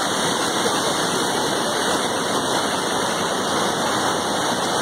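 Steady, unbroken rushing of water from heavy rain and floodwater.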